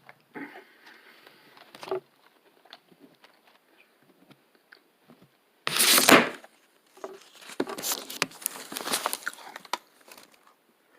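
Crinkling and rustling handled close to the microphone, with one loud rustle about six seconds in and a longer stretch of crackly rustling and clicks after it.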